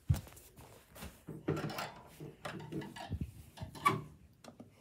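Handling noise from a tablet being carried and moved right at its microphone: scattered knocks and clicks with rubbing and rustling between them, the sharpest clicks near the start and about four seconds in.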